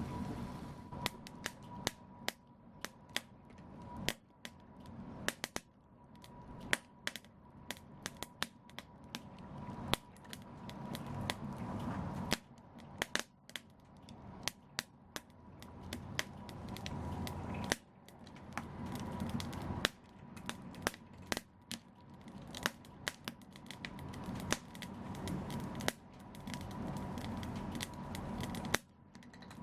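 Wood fire crackling in a fireplace: sharp pops and snaps come at irregular intervals, sometimes in quick clusters, over the low rush of the flames.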